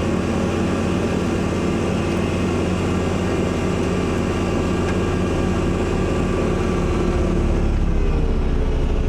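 Kubota tractor's diesel engine running steadily while driving its snowblower through heavy wet snow, with the engine note dipping slightly near the end.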